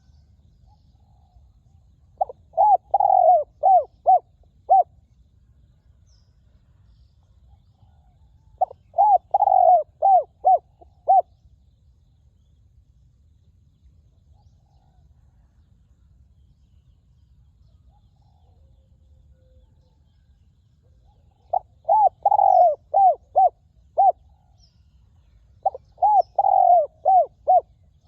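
Spotted dove cooing: four phrases of five or six quick coos each, separated by several seconds of quiet.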